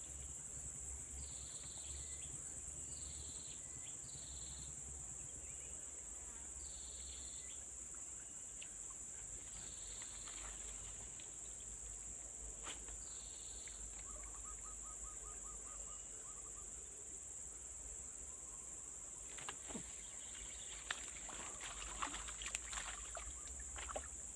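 Steady high-pitched insect chorus, crickets or similar, with short chirps repeating about every second in the first half and a brief trill around the middle. Scattered clicks and rustles come near the end.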